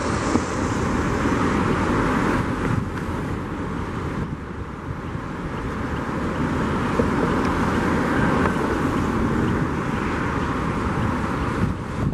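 Steady, unbroken outdoor engine and traffic noise: road traffic passing on a viaduct mixed with the engines of a Boeing 777F taxiing at low power.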